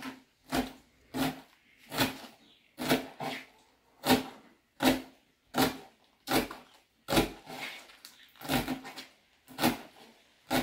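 Kitchen knife chopping collard-green leaves into thin strips on a plastic cutting board. About fourteen chops come at an even pace, roughly one every three-quarters of a second, each a short knock of the blade on the board.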